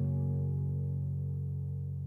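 Background music: a strummed guitar chord ringing out and slowly fading.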